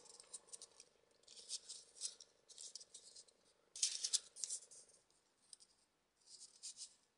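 Folded paper triangle modules for 3D origami rustling and scraping as they are pushed together by hand: soft, scattered crinkles, the loudest about four seconds in, over a faint steady hum.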